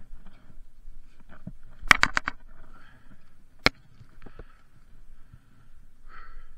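Electric mountain bike clattering as it is handled past a wooden post and ridden over rough ground: a quick run of about five sharp clicks and knocks about two seconds in, then a single sharp knock a moment later and a few fainter ones.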